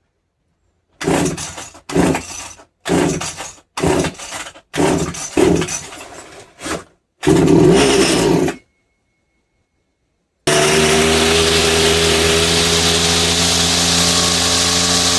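Petrol strimmer being pull-started after its carburetor was cleaned: about seven short bursts from pulls on the starter cord, the last one longer and louder. After a short gap the engine runs steadily.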